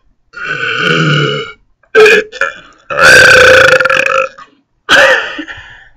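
A person burping loudly on purpose, over and over: four burps in quick succession, the first and third long and drawn out, the second and fourth short.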